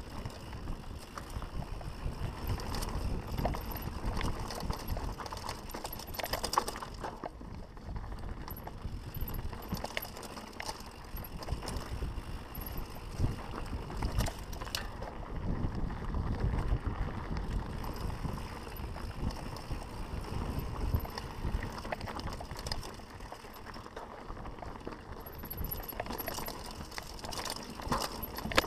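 Mountain bike descending a dirt and rocky trail: knobby tyres rolling over dirt and stones under a steady low rumble, with frequent clicks and rattles from the bike's chain and parts as it bounces over the rough ground.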